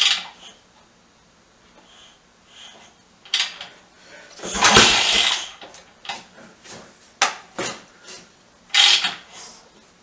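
BSA B44 single-cylinder four-stroke being kick-started without firing: the loudest kick, about halfway through, turns the engine over with a second-long clatter. Sharp metallic clicks and clacks from the kickstart come before and after it, and the engine never catches.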